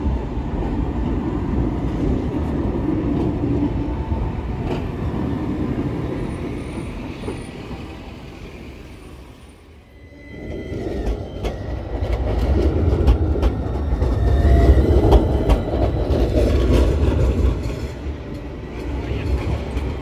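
A Bombardier Flexity low-floor tram running past and fading away. After a short dip a second low-floor tram approaches over the rails, its rumble swelling loudest a few seconds later, with brief thin wheel squeals.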